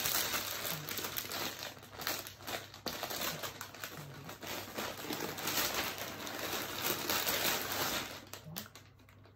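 Crinkling and rustling of a folded suit and its packaging being handled and unwrapped, full of small clicks, dying away near the end.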